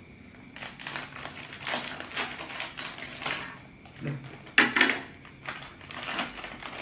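A plastic snack wrapper crinkling as it is handled and cut open with scissors: a run of short rustles, with a louder crackle about four and a half seconds in.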